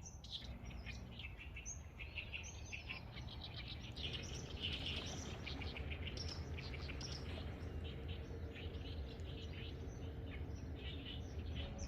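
Many small birds chirping and trilling together in a dawn chorus. A low steady rumble runs underneath, and a faint steady hum joins it about four seconds in.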